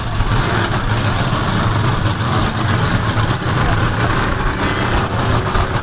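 Mud truck's engine running with a steady note.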